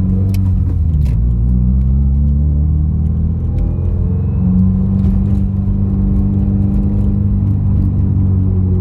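Subaru WRX's turbocharged flat-four engine running at light throttle while driving, with road rumble. The engine note shifts and settles in the first two seconds, with a couple of sharp clicks about a second in, then holds steady.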